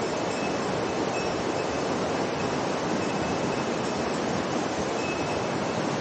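Steady rushing of a fast mountain river's water, an even unbroken roar.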